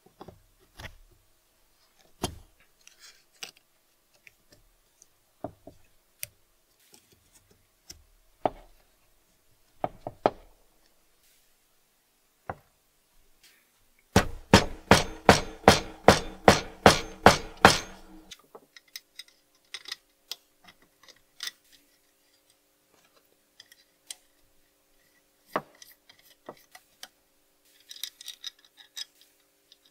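Small metal parts of an antique battery tester being handled and fitted by hand on a workbench: scattered light clicks and knocks. Near the middle comes a quick run of about a dozen ringing knocks, about three a second, lasting some four seconds, the loudest part.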